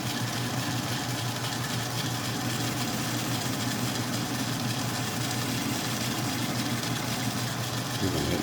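Atlas 10-D metal lathe running steadily with a constant hum.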